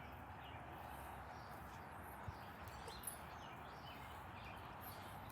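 Faint outdoor background hum with small birds chirping now and then, and a couple of light ticks.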